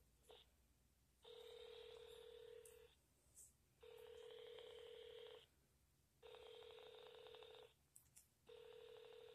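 Ringback tone of an outgoing call, heard faintly through a Samsung Galaxy phone's speaker while the call waits to be answered. There are four rings, each about a second and a half of steady low tone with a buzzy edge, about a second apart.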